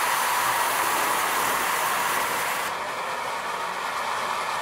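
Lionel and Marx tinplate toy trains running on metal track: a steady rolling and motor whirr. About two-thirds of the way through the sound changes abruptly, the hiss thinning and a few faint steady tones coming in.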